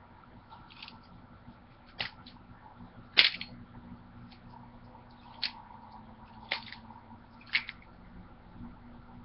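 Butterfly knife (balisong) being flipped open and closed slowly, its handles clacking against each other and the blade: a series of sharp clicks about a second apart, the loudest about three seconds in.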